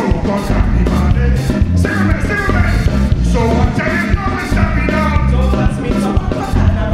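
Live calypso band playing a steady, driving beat with bass, drums and a brass section, with a male singer's voice over the band.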